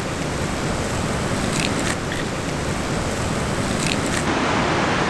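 Eggs sizzling as they hit a hot cast-iron skillet of frying vegetables, a steady sizzle with a few short sharp cracks of eggshells being broken.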